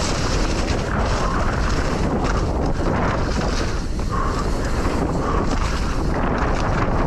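Wind buffeting a helmet- or body-mounted camera microphone as a mountain bike descends a dirt trail at speed, over a constant rumble of tyres on dirt and the bike rattling over the rough ground.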